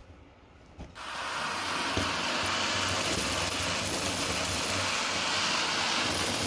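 Vacmaster Captura vacuum cleaner switched on about a second in, its motor spinning up within a second and then running steadily with a loud rush of air.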